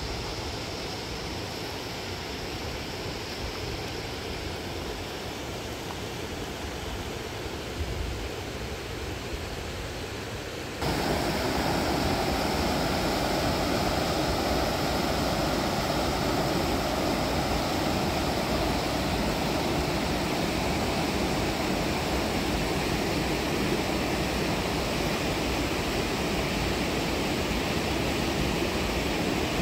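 River water running over rocky cascades in a steady rush. About eleven seconds in it cuts to a louder, nearer stretch of water.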